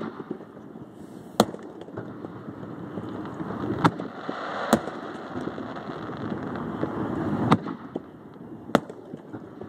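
Aerial fireworks shells bursting: five sharp bangs at irregular intervals over a steady background noise.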